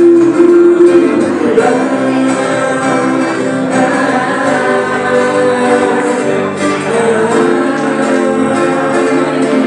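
Live acoustic band playing a song: strummed acoustic guitars and an electric guitar, with a woman singing into a microphone.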